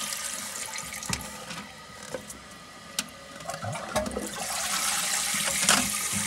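Water running and hissing in a toilet cistern, fading and then rising again, with a few light plastic knocks as the dual-flush valve is pushed back into its seat.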